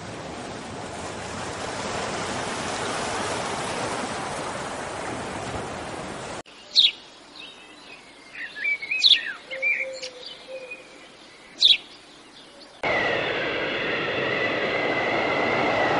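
Surf washing on a beach for about six seconds, then birds chirping with several sharp calls, then a sudden change near the end to a steady rushing noise with a high whistling tone held over it.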